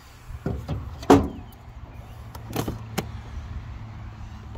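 A handful of short clunks and knocks from metal engine parts being handled in an old car's engine bay, the loudest about a second in with a brief metallic ring, over a steady low hum.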